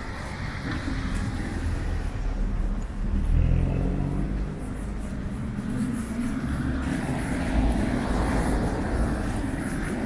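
Downtown street ambience: car traffic going by on a snowy street, a low rumble that swells twice.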